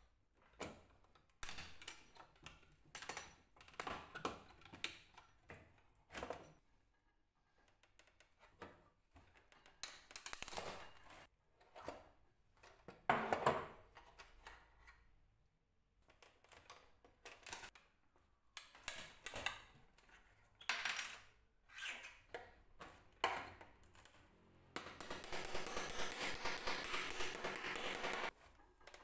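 Metal clicks, scrapes and clinks as old clips and fittings are pried off a wooden suitcase with end-cutting pincers, with small metal pieces clinking against each other and the wood. Near the end comes a denser run of rapid scraping lasting a few seconds.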